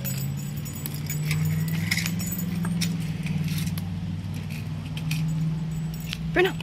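Metal chain dog collar and tag jingling in light, scattered clinks as a boxer puppy moves about, over a steady low hum. A brief rising squeak comes near the end.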